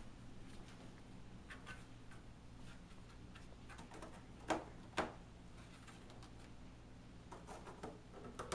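Light scattered clicks and taps, with two sharper knocks about four and a half and five seconds in, over a low steady hum.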